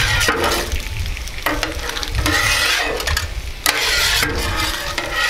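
Griddle scraper dragged in several strokes across a hot Blackstone flat-top griddle, scraping grease and cooked-on bits toward the front, over the sizzle of hash browns and bacon frying on the griddle.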